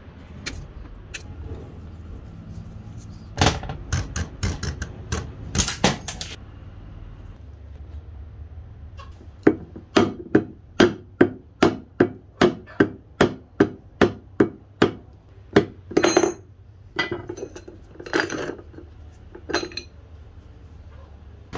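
Hammer blows on metal parts of an old drill press being taken apart or straightened. There is a quick cluster of strikes, then a steady run of about two blows a second, then a few scattered strikes, all over a steady low hum.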